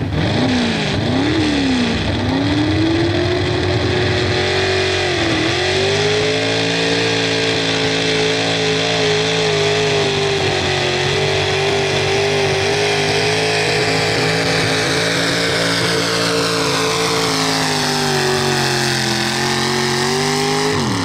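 Ford pickup truck engine at full throttle pulling a weight-transfer sled in a truck pull. The revs swing up and down a couple of times at the start, then hold high and steady. They sag late in the run and drop away sharply as the pull ends.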